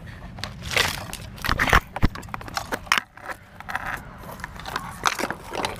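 Close handling noise from the crashed drone's camera: irregular rustling, scraping and sharp knocks as it is picked up and turned over.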